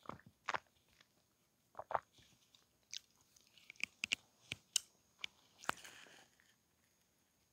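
Close-miked mouth sounds after a drink of milk: a string of soft wet lip smacks and tongue clicks, sparse at first and coming closer together in the middle.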